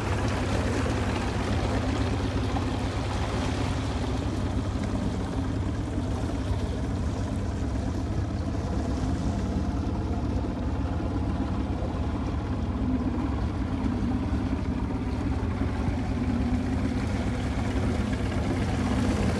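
Ranger bass boat's outboard motor idling steadily at low speed.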